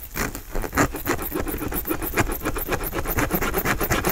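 Hands tearing apart a giant Philly cheesesteak on its thick roll: a dense run of small crackles and rustles as the bread and filling are pulled apart.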